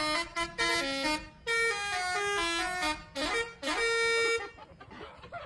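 A bus's telolet horn, a multi-tone musical air horn, playing a quick melody of short stepped notes, with a brief break a little over a second in, a couple of sliding notes, and one longer held note before it stops about four and a half seconds in.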